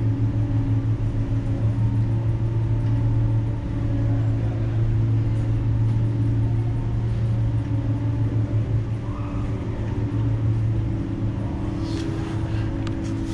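Steady low engine drone with a strong hum on the apron as an Airbus A380 is moved by a tug at its nose. The drone dips slightly about four seconds in, and a few faint clicks come near the end.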